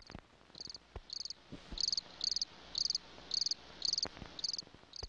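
Cricket chirping: short, high trilled chirps repeated evenly about twice a second, with a few faint clicks and pops in the background.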